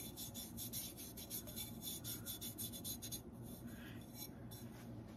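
Fingertips rubbing over the dry, powdery raw glaze of a ceramic tumbler, buffing down rough spots, in rapid scratchy back-and-forth strokes. The strokes stop about three seconds in, and a few lighter rubs follow.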